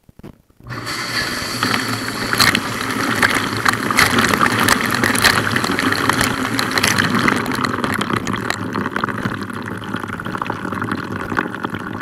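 Dishwasher wash cycle heard from inside the tub: the pump starts suddenly about a second in and the spray arms throw water against the walls and the camera in a steady loud rush, with many sharp drip and splash ticks. The jets are working normally.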